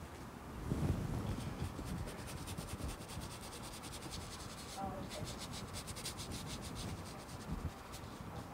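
Paintbrush scrubbing acrylic paint onto canvas in quick, repeated short strokes, with a brief break about halfway through.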